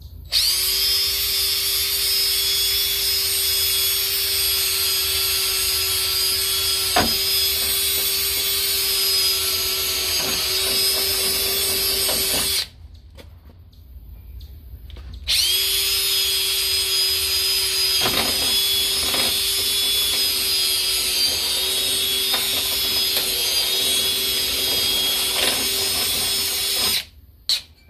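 A cordless power tool running at a steady high speed as it cuts a marked curve into the Jeep's fender panel for a snorkel opening. It is a constant high-pitched whine in two long runs, with a pause of about three seconds between them.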